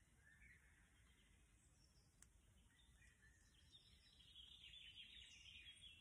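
Faint wild birdsong: a few short chirps, then a quick, rapidly repeated trill over the last two seconds, over near-silent background hiss.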